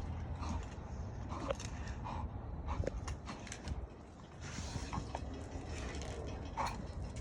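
Pit bull puppies playing on their leashes: scuffling with many scattered clicks and knocks and short dog sounds throughout.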